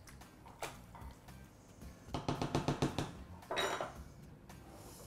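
Silicone spatula stirring and scraping pasta in an enamelled pot, with a quick rattling run of strokes against the pot about two seconds in, then a short clatter a second later as the spatula is put down and the pot is handled.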